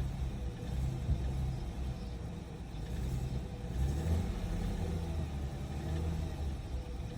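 Audi 3.0 TFSI supercharged V6 (engine code CREA) running cold with a knock.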